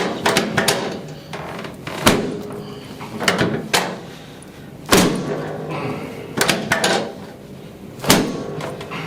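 Chiropractic drop table sections dropping again and again under thrusts on a face-down patient's back: a series of sharp knocks. The loudest come about every three seconds, with smaller knocks in between.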